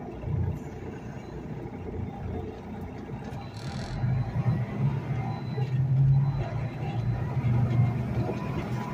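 Semi-truck's diesel engine pulling away from a stop and getting louder about four seconds in as it accelerates.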